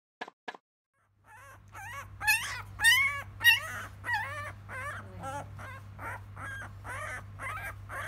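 A 12-day-old Labrador retriever puppy crying in high, wavering squeals, about two a second and loudest a couple of seconds in, as it squirms while held on its back.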